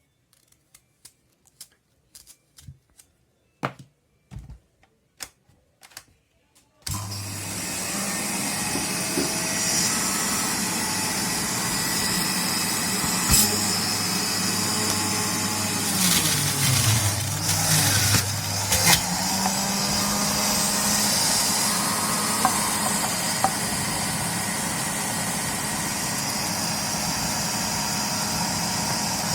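A few clicks and knocks, then an electric juicer's motor switches on about seven seconds in and runs steadily with a loud whir while juicing turnip pieces. Around the middle its hum sags in pitch and comes back up, the motor slowing under load as pieces are pressed in.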